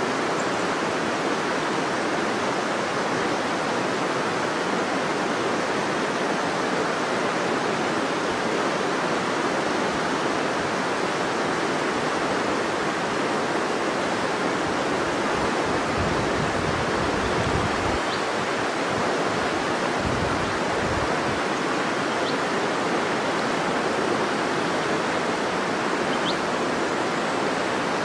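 A river flowing: a steady, unbroken rush of water.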